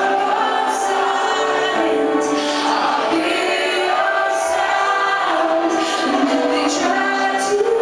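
Live trance music with a woman singing long held notes over sustained synth chords, with little bass.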